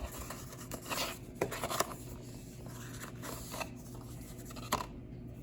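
Paper and packaging being handled: soft rubbing and rustling with a few light clicks, about a second and a half in and again near the end.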